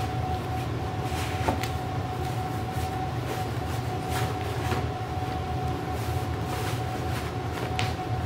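A steady low hum with a constant mid-pitched tone in the room, with a few faint taps and rustles as jeans are pulled down over tall boots and the wearer steps onto carpet.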